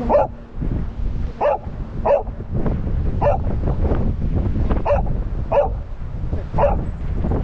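A dog barking: seven short, sharp single barks, irregularly spaced about a second apart, over a steady low rumble of wind on the microphone.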